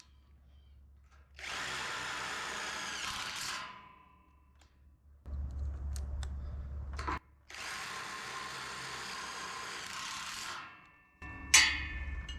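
Power drill driving screws into a bracket, in two runs of about two and three seconds.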